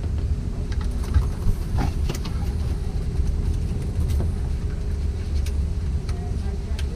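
A steady low mechanical hum runs throughout, with scattered light clicks and rustles as flexible plastic trunking and cables are handled and cable-tied.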